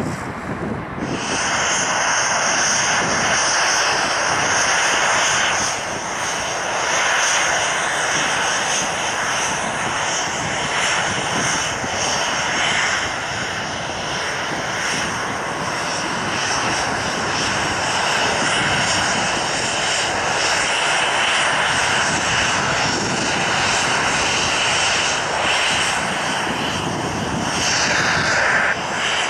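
Boeing 787-8 jet engines at taxi power: a steady whine over a rush of air as the airliner taxis.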